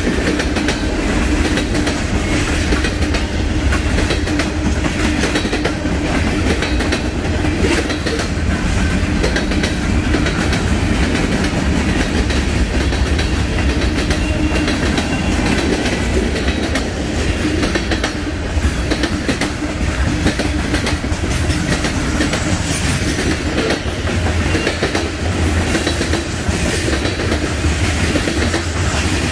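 Freight train cars rolling past, steel wheels clicking over the rail joints over a steady rumble.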